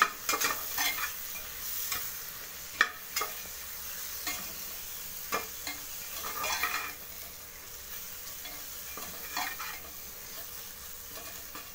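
A metal spoon stirring and scraping a tomato-onion masala with ground spices in a metal pressure cooker, with sharp clinks against the pot now and then, over a steady sizzle of the masala frying in oil.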